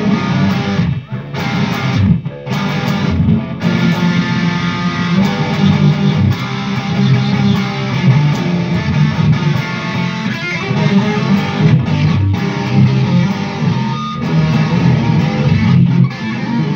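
Electric guitar music playing, with short breaks about one and two seconds in.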